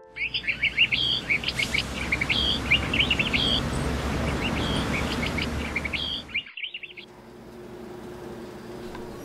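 Small birds chirping in quick repeated phrases over a steady low outdoor rumble. About seven seconds in, this gives way to a quiet room with a faint steady hum.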